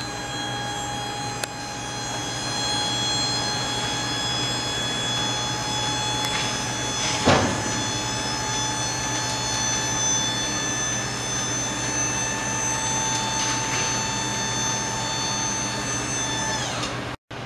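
Hydraulic hoist of a pickup's dump body whining steadily as it raises the bed. A brief, louder falling sweep comes about seven seconds in. Near the end the whine sags in pitch just before it cuts off suddenly.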